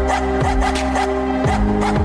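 Background music with a steady electronic beat: a regular kick drum about every half second under sustained synth notes.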